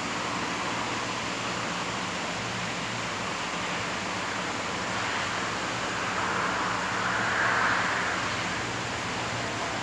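Heavy rain falling over the city, a steady hiss that swells briefly about two-thirds of the way through.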